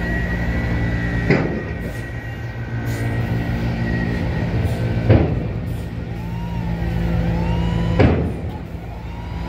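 A Hyundai coach's diesel engine running at low revs while the bus turns slowly, with three short, sharp air hisses about a second in, five seconds in and eight seconds in, typical of air brakes releasing.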